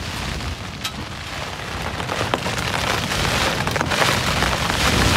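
Storm wind battering a Coleman tent, heard from inside: the flysheet flaps and rattles under the gusts, with wind blasting the microphone. The noise grows louder from about two seconds in.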